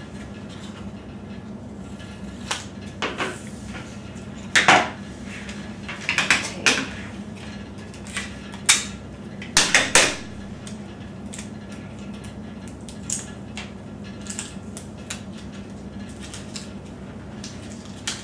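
Paper flexagon being folded and creased by hand on a wooden table: irregular crisp crackles, rustles and taps, the loudest about four and a half seconds in and again around ten seconds in.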